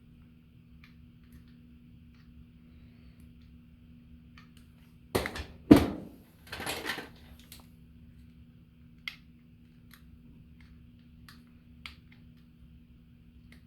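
Small parts and tools being handled on a workbench: faint scattered clicks over a low steady hum, with a short burst of knocks and a rustling scrape about five to seven seconds in.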